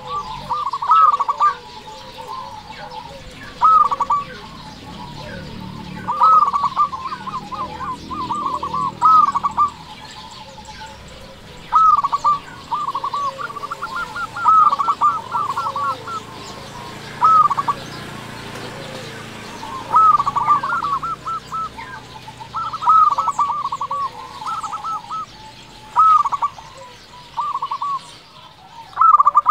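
Zebra dove (perkutut) song: clusters of short, quick cooing notes, repeated every second or two with brief pauses between.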